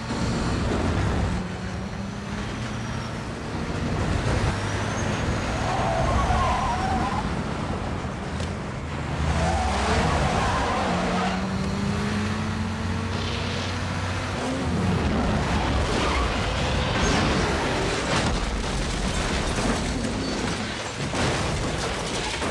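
Film sound mix of car engines running hard at high speed, revs rising and falling, over heavy road and wind noise, with scattered sharp knocks.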